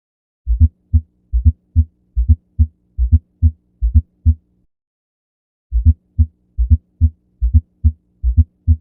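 Heart sounds with an S4 gallop: a soft extra sound just before each S1, then S2, repeating at about 70 beats a minute, the sign of a stiff ventricle. The beats sit over a faint steady hum and break off for about a second midway.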